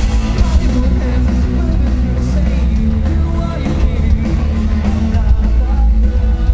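Loud live rock band playing, with drums, bass and guitars in full and a singer on the microphone, heard from within the crowd.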